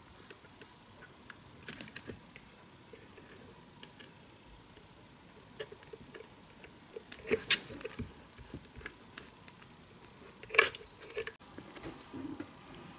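Scattered small plastic clicks and handling taps from the speed-control knob of a KATO Power Pack Hyper DX being turned by hand, with two louder clicks about seven and a half and ten and a half seconds in.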